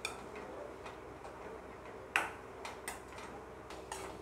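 Steel ladle knocking and scraping against a metal kadai while stirring sautéing moringa leaves: a few sharp clicks, the loudest about two seconds in, over a faint steady hum.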